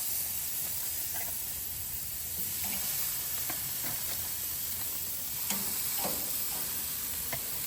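Steak and chicken pieces sizzling on a hot, oiled grill: a steady frying hiss with a few faint small clicks and pops scattered through it.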